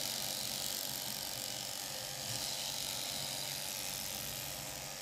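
Electric sheep-shearing handpiece running steadily as it cuts through a Shetland sheep's fleece.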